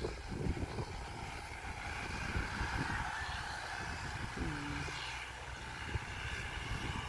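Diesel farm tractor engine running steadily at a distance while it tills a field.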